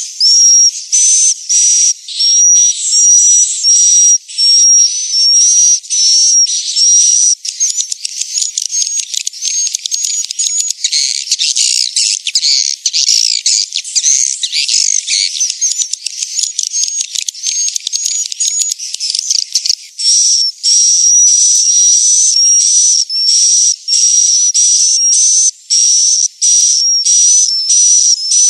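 Swiftlet lure call: high-pitched, twittering swiftlet chirps repeated about twice a second, with a denser overlapping chatter of many calls through the middle. It is the kind of calling sound played in swiftlet houses to draw the birds in to roost.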